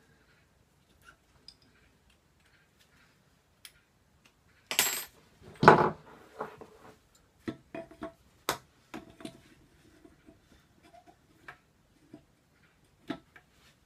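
Scattered knocks and clinks of metal parts being handled and fitted together as a bellows coupling goes back onto a gripper's rotary shaft. About five seconds in there is a short rustle, then a louder thud, followed by a run of small knocks.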